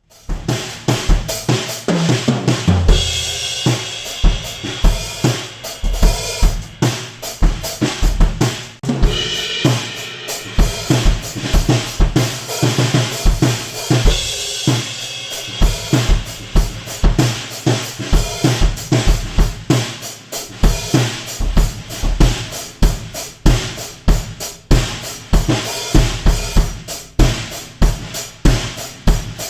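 Drum kit played solo in a steady groove: a copper-shell Steel Drum set with Pasha cymbals. Regular bass-drum kicks under snare hits and rimshots, with cymbal crashes swelling a few times.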